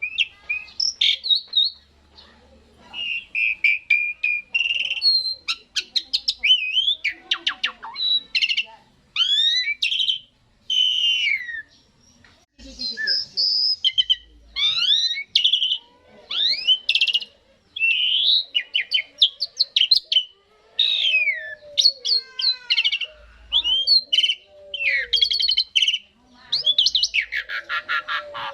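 Asian pied starling (jalak suren) singing a long, varied song of whistles, chatters and rattling trills in quick phrases with short pauses between them.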